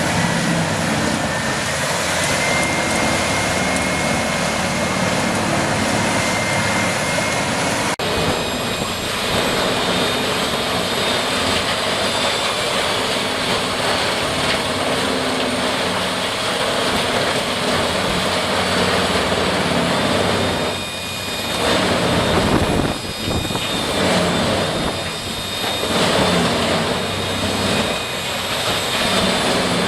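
Loud, steady machinery running, changing abruptly about eight seconds in, with a few brief dips in level later on.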